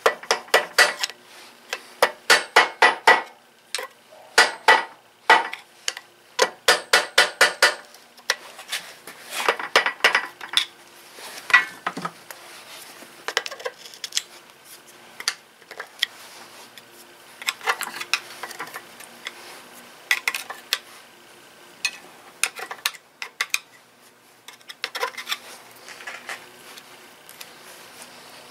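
Metal tools and engine parts clinking and tapping at a workbench, in quick runs of sharp metallic strikes with sparser single clicks in the second half.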